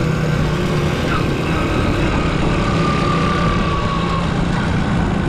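Honda Super Cub 90's single-cylinder four-stroke engine running steadily under way, with heavy wind rumble on the microphone.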